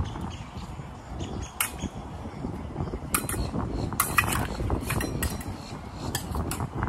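Épée blades clicking and clinking against each other in quick, irregular contacts during a fencing bout, in a few clusters over a steady low rumble.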